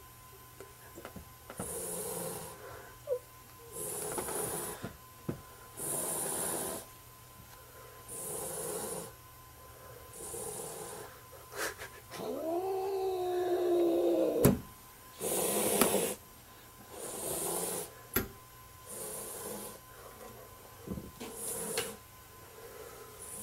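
A domestic cat growling and hissing in a steady rhythm, a harsh breathy sound about every two seconds, with one long rising-and-falling yowl about twelve seconds in: a cornered, defensive cat.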